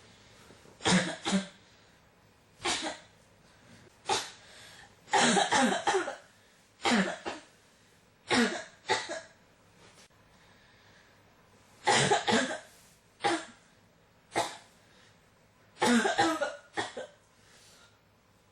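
A person coughing over and over in short fits of one to four coughs, with pauses of one to three seconds between: a cough that will not stop.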